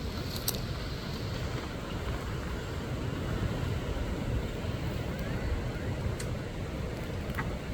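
Wind buffeting the microphone: a steady, uneven low rumble, with a couple of faint clicks.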